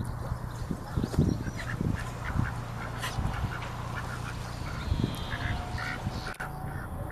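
Ducks quacking, many short calls in quick succession, with a few low thumps.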